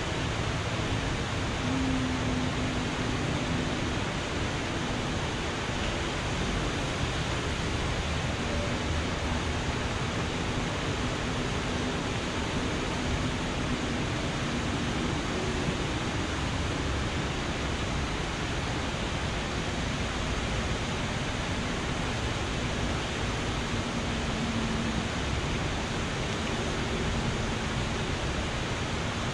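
A steady, even rushing noise, with a faint low hum that comes and goes underneath.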